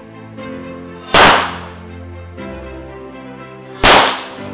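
Two single shots from a semi-automatic pistol, about a second in and near the end, each a sharp crack with a short ring-out, over background music.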